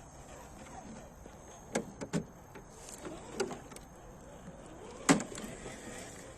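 RGT EX86110 1/10-scale RC crawler moving over off-road terrain: four sharp knocks and clacks over a faint steady background, the loudest about five seconds in.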